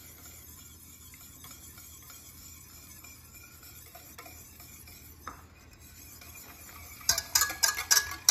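A wire whisk beats a thin mayonnaise mixture of egg yolks, oil and vinegar by hand in a stainless steel saucepan. It makes a soft, faint swishing for most of the time, then about seven seconds in it clatters rapidly against the sides of the pan.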